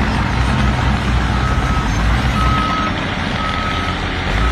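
Back-up alarm of a heavy vehicle beeping on a single steady tone, about one beep a second with three clear beeps from about a second and a half in, over the low rumble of its running diesel engine: the vehicle is reversing.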